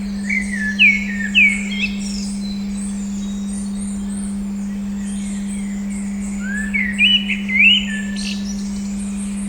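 Steady 200 Hz tone hums under birdsong. Two short bursts of whistled bird notes, with quick rising and falling slurs, come about half a second in and again near seven seconds.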